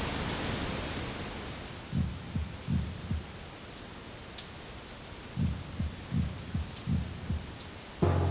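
Slow heartbeat sound effect: low thumps in lub-dub pairs, starting about two seconds in, pausing, then resuming. Near the end a louder low droning tone comes in.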